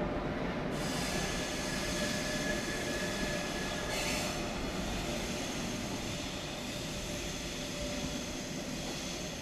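ÖBB Railjet train hauled by class 1116 Taurus electric locomotives, running past on departure. It makes a steady rolling noise with a faint high whine and a brief hiss about four seconds in.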